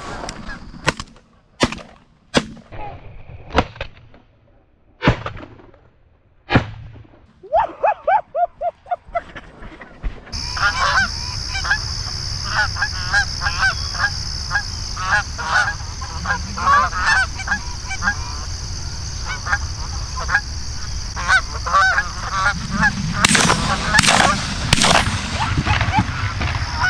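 A few sharp shotgun shots in the first seven seconds, then Canada geese honking. From about ten seconds in, a flock keeps up a dense, steady chorus of honks.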